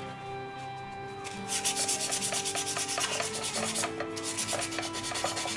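Quick, even back-and-forth scraping of a hand tool on the rusty metal of a moped's rear carrier, cleaning the cracked metal before brazing. The strokes start about a second and a half in, at several a second, and pause briefly near the four-second mark.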